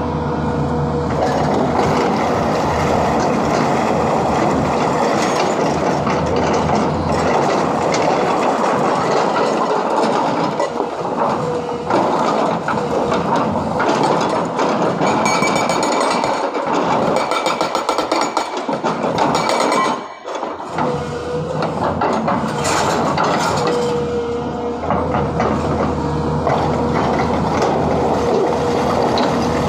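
Hydraulic rock breaker on a Sany 210 excavator hammering rock in a rapid, continuous clatter, with the excavator's engine running under it. The hammering breaks off briefly about two-thirds of the way through, then starts again.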